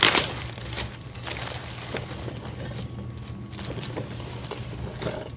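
Charcoal packaging being handled: a loud rustle at the start, then scattered light rustles and taps, over a steady low hum.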